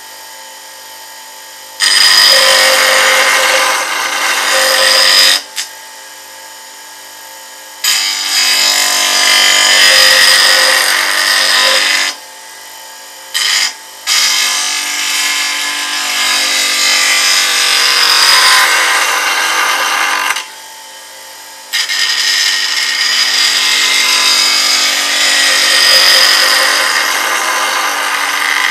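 Bench grinder's white wheel grinding the edge of a steel bowl scraper held flat on a tilting platform: four long grinding passes of several seconds each and one brief touch, sharpening the scraper's profile and rounding over its tip. Between passes the grinder spins freely, much quieter.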